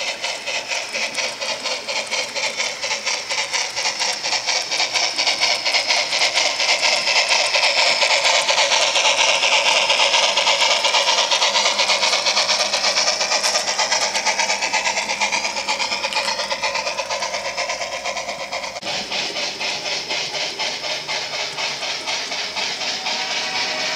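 Model B&O EM-1 2-8-8-4 steam locomotive and its freight train running past, a fast steady clicking with steam-engine hiss. It grows louder to a peak in the middle as the locomotive passes close, then fades, changing abruptly a few seconds before the end.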